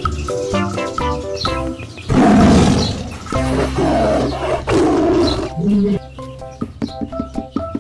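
Lion roar sound effect, a few long roars from about two seconds in until about five and a half seconds, over background music of short plucked notes.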